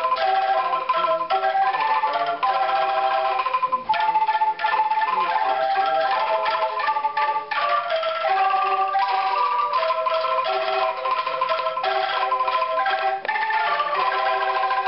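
Angklung ensemble playing a tune: shaken bamboo tubes giving held, rattling notes, several pitches sounding together.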